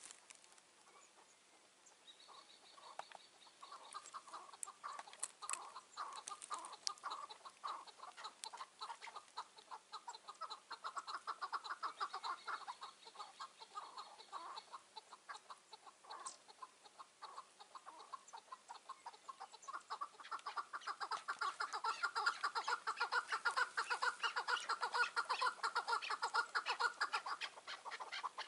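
Chukar partridge calling: long runs of rapid, repeated chuck notes that ease off briefly midway and then build louder toward the end. A thin, steady high tone sounds alongside at times.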